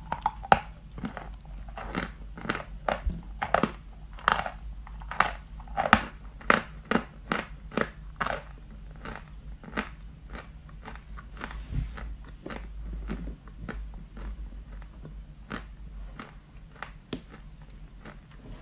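Close-up crunching and chewing of a block of white chalk: crisp bites and grinding crunches about two a second, loudest in the first half, then thinning out into fainter, softer chewing.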